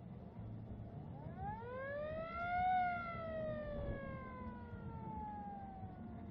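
Vintage fire engine's siren giving one wail: it rises over about a second and a half, then falls slowly over about three seconds. A low, steady rumble runs underneath.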